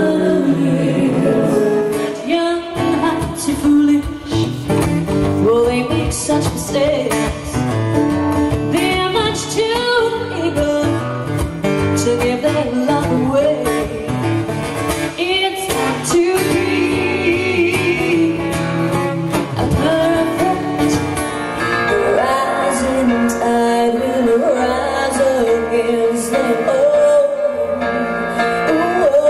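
Live acoustic music: a woman singing lead over piano and acoustic guitar accompaniment, in short excerpts of different songs cut together.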